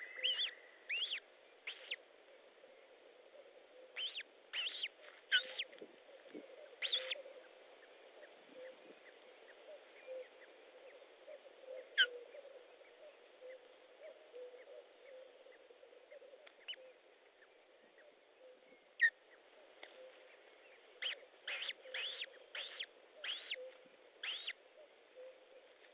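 Osprey calling: sharp, short whistled chirps in several bursts of a few rapid notes, separated by pauses. A faint steady hum runs underneath.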